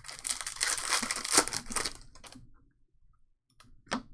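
A trading card pack's foil wrapper being torn open and crinkled for about two seconds, followed by a single light tap near the end.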